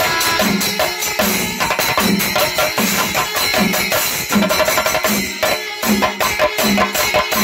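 Kerala temple festival percussion ensemble, drums and cymbals playing a fast, steady rhythm, loud and continuous, with a short low note repeating about twice a second.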